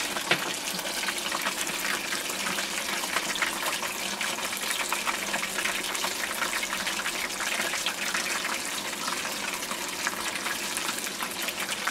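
Chicken karaage deep-frying in a pot of hot oil: a steady sizzle dotted with many small crackles.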